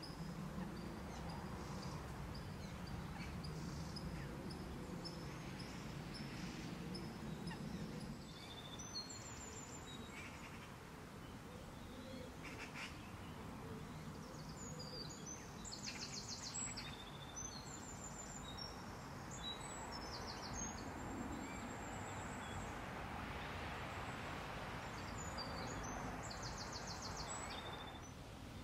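Small songbirds calling in short high chirps and a few fast trills over a steady outdoor background hiss, with a low hum underneath for the first eight seconds or so.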